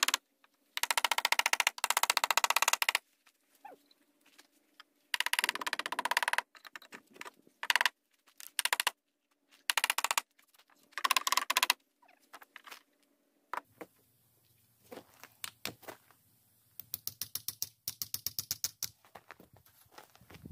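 Hammer driving medium spikes into the wooden stair framing, in quick runs of sharp knocks with pauses and a few single taps between.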